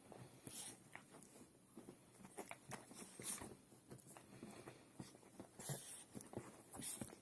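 Two dogs play-fighting, quietly: scattered soft clicks and brief breathy puffs.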